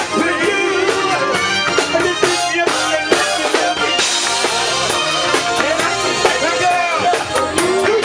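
Live band music: a vocal group singing over drum kit, guitar and keyboard.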